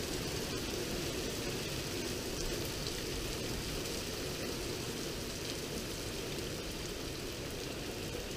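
Heavy thunderstorm rain falling steadily, large drops pattering on surfaces, with a few sharper individual drop hits.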